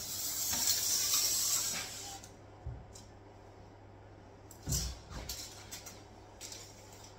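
A steel tape measure and hands moving over a laminate worktop. A scraping hiss lasts about two seconds, then there are a few soft knocks and short scrapes.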